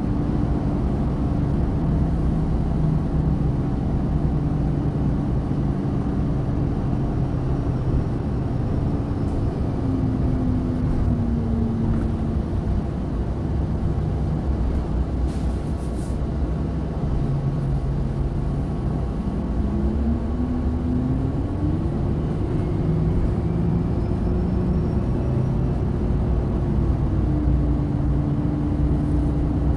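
Orion VII hybrid bus's Cummins ISB diesel and BAE Systems HybriDrive electric drive running, heard from inside the bus: a steady low drone with a tone that slides down about ten seconds in, rises and climbs higher about twenty seconds in, holds, then drops again near the end.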